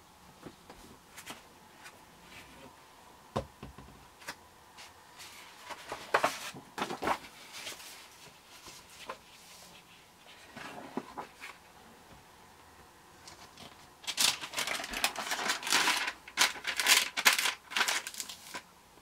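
A stamp stockbook being opened and its pages turned by hand: a soft knock a few seconds in, then paper rustling and crinkling in short bouts, with the longest and loudest stretch of rustling in the last five seconds.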